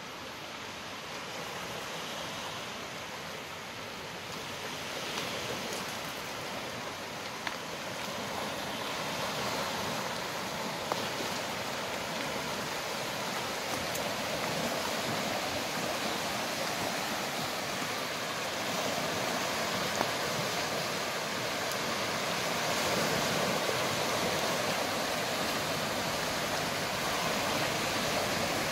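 Small waves washing and lapping onto a flat, rocky lakeshore: a steady rush of water that grows louder toward the end, with a few faint clicks.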